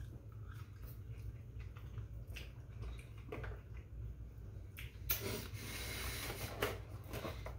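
Quiet eating sounds: small clicks and squishes of people chewing burgers. About five seconds in, a louder rustling starts as a cardboard burger box is handled.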